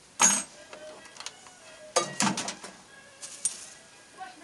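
Large sheet-metal tin clanking and rattling as it is handled: a sharp clank about a quarter second in, a cluster of rattling knocks around two seconds in, and a lighter knock near the end.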